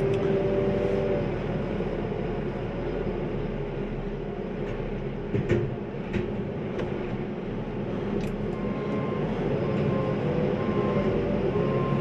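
Telehandler's diesel engine running with a hydraulic whine that stops about a second in, as a straw bale is lowered from its grab into a bale chopper. A few light clicks sound around the middle, and from about two-thirds in a short beep repeats at an even pace.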